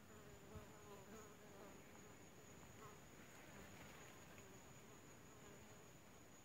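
Faint buzz of a flying insect, its pitch wavering, dying away about two or three seconds in; otherwise near silence.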